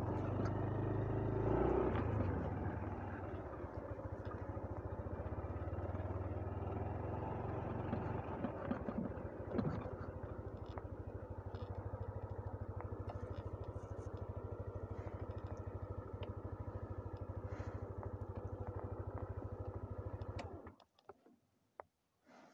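Motorcycle engine running with a steady, even low beat, cutting off suddenly about twenty seconds in.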